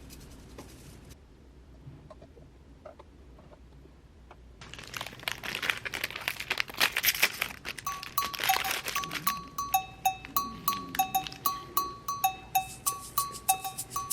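Faint handling clicks, then a loud crackling, crinkling rustle about halfway in, after which background music starts: a bright two-note figure alternating between a higher and a lower note, about two notes a second.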